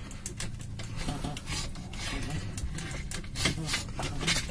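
Car stereo head unit being pushed and shifted in its dash slot: its metal casing rubs, scrapes and clicks irregularly, over a steady low hum.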